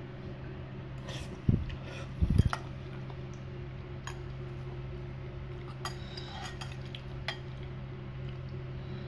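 Metal spoon and fork clinking and scraping against a ceramic bowl of noodle soup, in scattered light clicks. Two loud dull thumps come about a second and a half and two seconds in, over a steady low hum.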